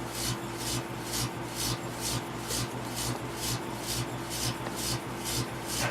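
A microwave oven running with a steady low hum, over a high hissing crackle that pulses evenly about three times a second while a lightbulb inside burns with plasma.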